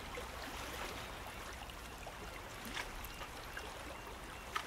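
Faint, steady wash of river water trickling and lapping, with a sharp click near the end.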